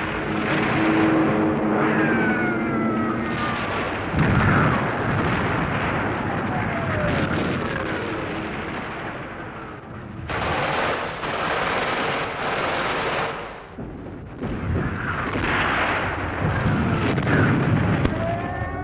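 Wartime bombardment: shells whistling down in falling tones and exploding with heavy booms, with a burst of rapid gunfire about ten seconds in that lasts about three seconds.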